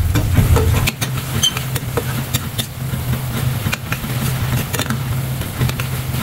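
A metal slotted spoon stirring and scraping a thick tomato masala in a stainless steel pan as its water cooks off, with scattered small clicks and pops over a steady low hum.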